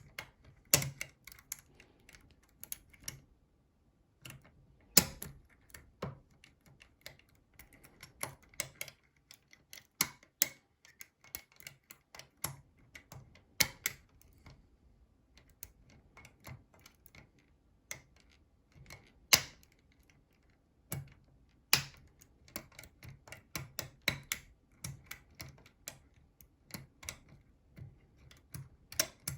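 Irregular small metallic clicks and taps from tools working inside a NATO-spec Mersey 10-lever lock, with a few sharper, louder clicks and short pauses between runs.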